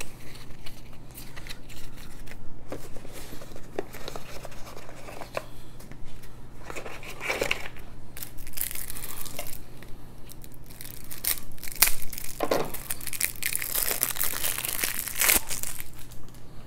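Plastic shrink wrap being torn off a deck of playing cards and crinkled in the hands, mixed with cards being handled. It goes in scattered crackles at first, then a dense crinkling through the second half.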